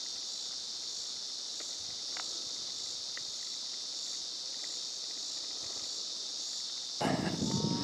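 A steady high-pitched chorus of crickets and other insects. Near the end a louder noise cuts in suddenly.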